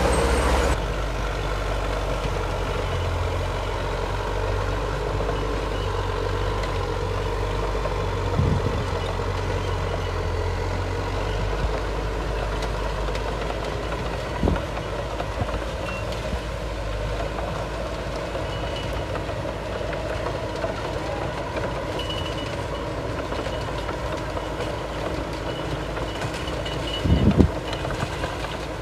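Heavy diesel earthmoving machinery running steadily at a road-fill site, with a few dull thuds, the loudest near the end. Faint high-pitched beeps, like a reversing alarm, come in during the later part.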